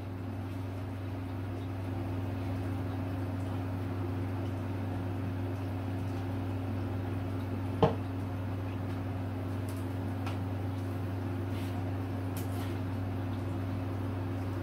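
Steady low mechanical hum of a small room, with one sharp tap about eight seconds in.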